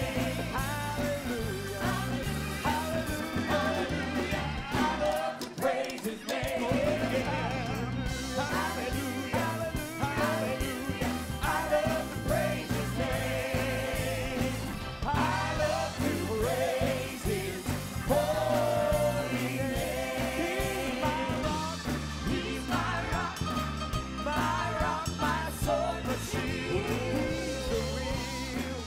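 A live church worship team singing a gospel praise chorus: a male lead vocalist and a group of backing singers, with music behind them.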